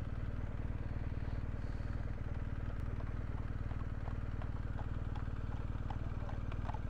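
BMW R1250GS boxer-twin motorcycle engine running steadily at low revs, its firing pulses even. A few faint hoof clops from horses begin near the end.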